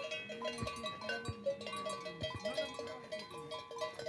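Bells on grazing cattle ringing in an irregular jangle of short, clear notes, with an occasional clank.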